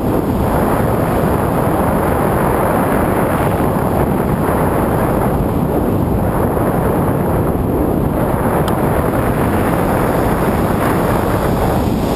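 Steady, loud wind rumbling on the camera's microphone from the airflow of a paragliding flight.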